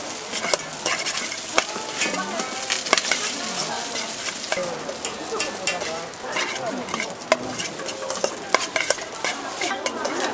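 Food frying and sizzling on a hot griddle, with many short clicks and scrapes of metal utensils working it.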